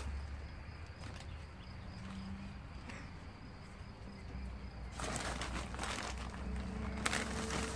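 Rustling and scraping of gloved hands working potting soil. The rustle grows louder about five seconds in, with a sharp click near seven seconds, over a low steady hum.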